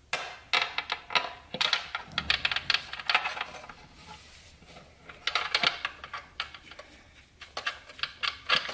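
Quick runs of small metallic clicks and rattles as a bolt is threaded by hand through the centre of a ribbed metal transmission filter into the TH400 valve body, the filter shifting against the metal underneath. The clicks come in irregular bursts, with a lull in the middle.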